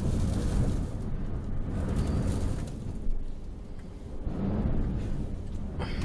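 Strong gusty wind buffeting a parked camper van, heard from inside the cabin as a low rush that rises and falls with the gusts. A sharp click comes right at the end.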